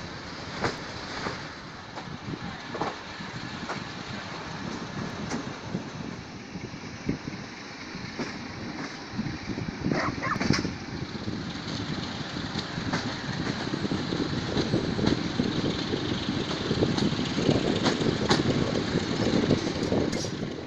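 Passenger train running on the rails: a steady wheel-and-track rumble with scattered sharp clicks from the rail joints. The rumble grows louder in the second half.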